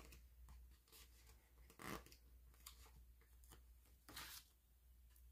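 Faint rustling of a paper sticker sheet as stickers are handled and peeled with tweezers, with two short, slightly louder rustles about two and about four seconds in, over a quiet low room hum.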